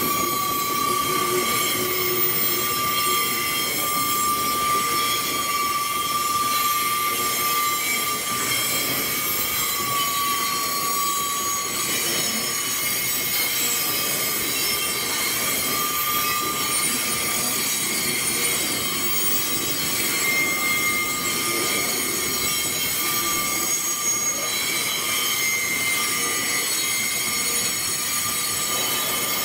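Narrow-gauge gypsum hopper wagons rolling slowly past, with a steady high squeal from the wheels over the rumble of the train. The squeal's pitch shifts partway through.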